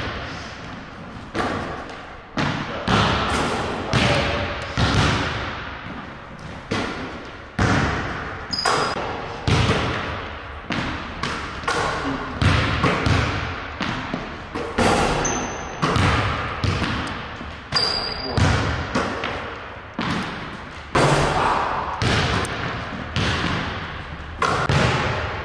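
Basketball thudding on a hardwood gym floor again and again, each bounce echoing briefly in the hall, with a few short high squeaks in between.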